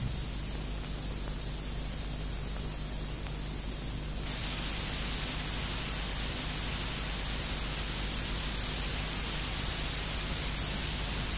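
Steady analogue static hiss with a low, steady hum beneath it; the hiss turns brighter about four seconds in.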